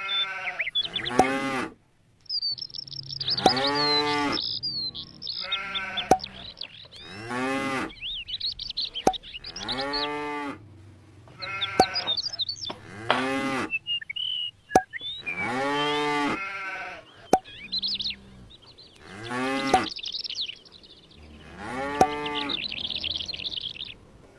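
Farm animals calling over and over, about one call every two seconds, with high bird chirps between the calls.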